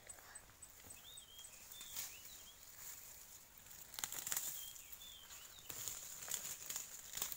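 Leaves and stems rustling and snapping as wild ferns are pulled up by hand from the undergrowth, with short bird chirps in the background.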